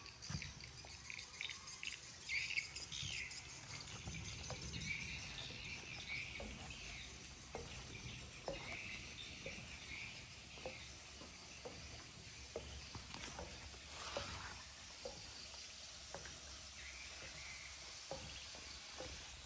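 Outdoor ambience of chirping insects and birds. Soft footsteps on a metal staircase come midway.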